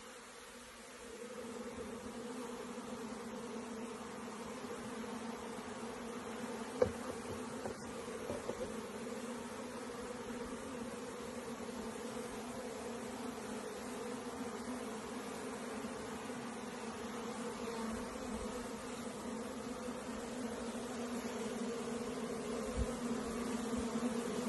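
Honeybees buzzing steadily in a mass, a continuous low hum, with a single sharp click about seven seconds in.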